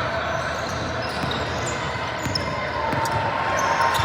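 A basketball bouncing on a gym floor, with short thuds over a dense, steady din of the crowd in the gym.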